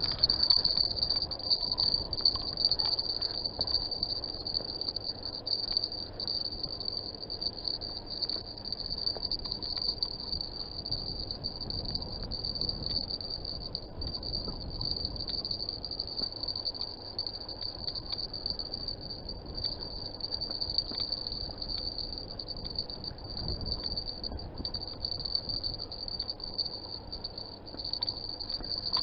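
A steady high-pitched insect trill, such as crickets, over a low rumble of wind and water.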